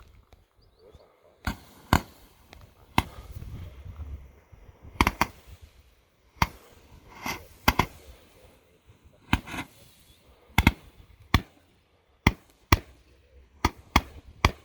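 Consumer fireworks barrage firing shot after shot: sharp pops spaced irregularly, roughly one to two a second, some with a brief crackling tail.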